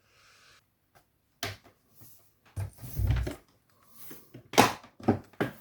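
Handling knocks and clunks: a string of sharp knocks, with a low thud around three seconds in and the loudest knock about four and a half seconds in.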